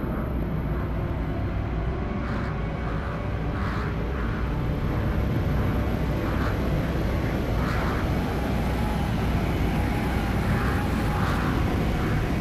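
Steady rushing rumble of wind on a body-mounted camera during a freefall from the stratosphere, with soft hissing puffs recurring every second or so.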